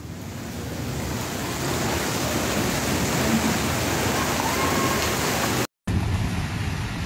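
Steady rushing noise of heavy rain and running floodwater on a street. It cuts out for an instant about six seconds in, then carries on with more low rumble.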